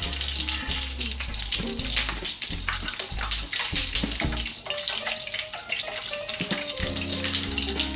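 Sizzling and crackling in a non-stick frying pan as a metal spatula stirs and scrapes through the hot liquid. Background music with a steady bass plays underneath.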